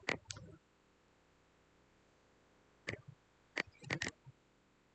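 Sparse clicks of a computer mouse: two at the start, then after about two seconds of quiet, four more in a short cluster.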